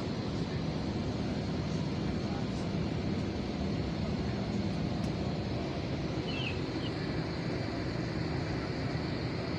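Steady low rumble of an airliner's engines and airflow, heard from inside the passenger cabin, with no change in level.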